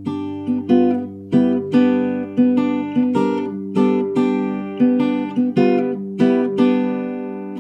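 Background music: an acoustic guitar strummed in a steady rhythm, about three strums a second, over a held low bass note.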